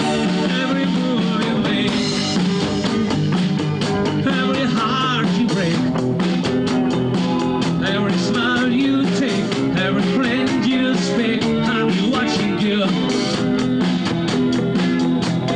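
Amateur rock band playing live: electric guitars and keyboard over a steady beat, picked up by a home camcorder.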